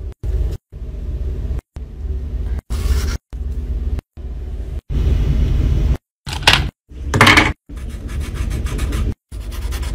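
Paper being handled and rubbed, with a few brief crackles, then a marker scratching in even strokes on paper near the end. The sound comes in short chopped pieces broken by sudden silences.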